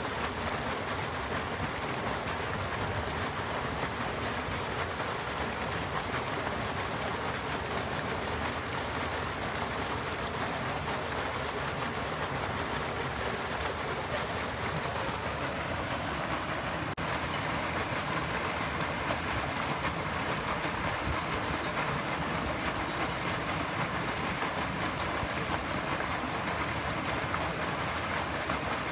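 Bubbler fountain jet splashing up through the surface of a shallow stone-edged pond: a steady rush of water.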